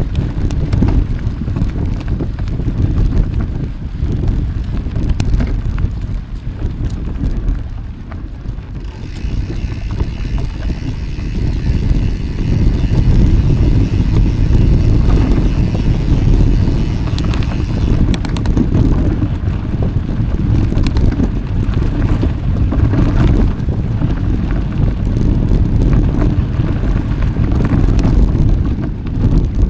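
Wind buffeting the microphone on a moving mountain bike, over a low rumble of the ride. It grows louder about ten seconds in.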